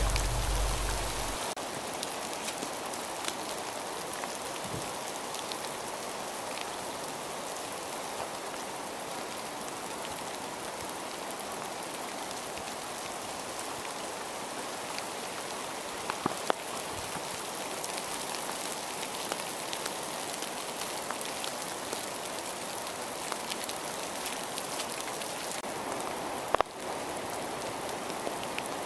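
Steady rain falling on a forest trail: a dense, even patter of raindrops, with a few sharp taps partway through and near the end.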